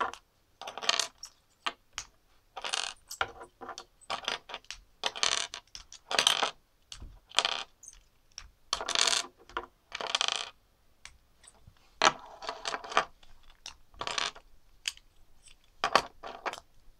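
Loose plastic Lego bricks clicking and clattering as they are picked up, set down and pressed together, in irregular bursts about every second.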